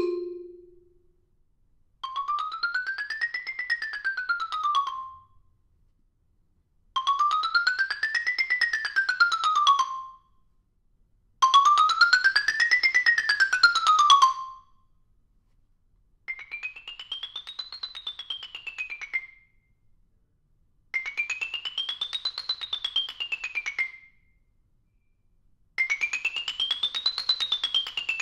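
Stone x50 mallet xylophone played in quick up-and-down scales: six runs of rapid struck notes, each climbing and then descending, with short pauses between. The first three runs are in a lower register and the last three an octave higher.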